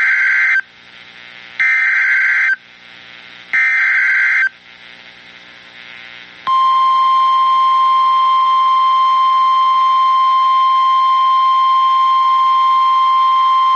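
Three SAME digital alert headers from the Emergency Alert System sound as one-second warbling data screeches, about a second apart. About six and a half seconds in, the steady single-tone 1050 Hz weather-radio warning alarm starts: the attention signal that marks a new warning about to be read.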